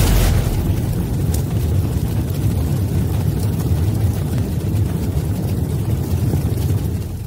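Intro sound effect: a deep, steady rumbling whoosh, brightest as it bursts in at the start and fading out near the end.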